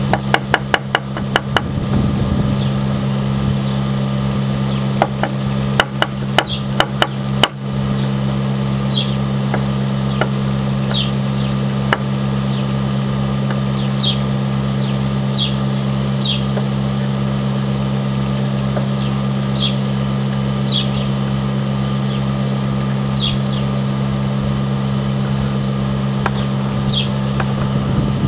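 A forged 52100-steel kitchen knife chopping carrot on a wooden cutting board: a fast run of knocks, then a second flurry that stops about seven and a half seconds in. A steady low hum runs underneath, and after the chopping, short high falling chirps repeat every second or two.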